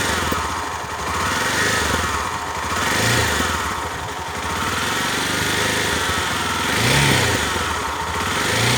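Honda XR250 Tornado's single-cylinder four-stroke engine idling and being blipped up about four times, with a humming, rubbing noise that changes with the revs. The owner suspects worn cam-chain guides rubbing on the timing chain.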